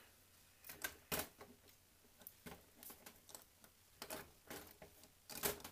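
A dozen or so irregular light clicks and knocks from the cast-iron body shell of a 1958 Fleischmann V200 model locomotive being handled and fitted against its chassis.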